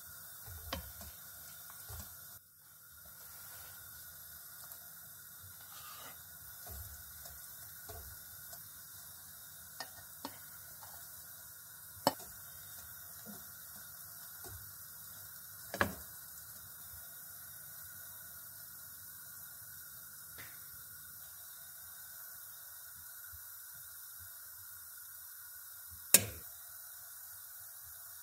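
Cream sauce simmering quietly in a frying pan under a steady faint hum, with a spoon stirring and scraping. Several sharp clinks of the spoon against the pan stand out, the loudest near the end.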